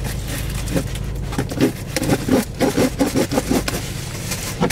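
Ice scraper blade sawing and jabbing at a taped cardboard box in a run of quick, rough scrapes starting about a second and a half in. Under it is a steady low hum inside the car.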